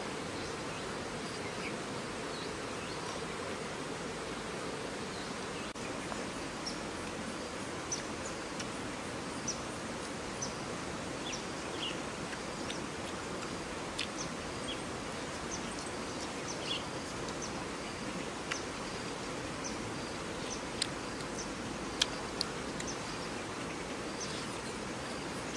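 Steady outdoor insect buzz with scattered short high chirps, broken by a few sharp clicks near the end.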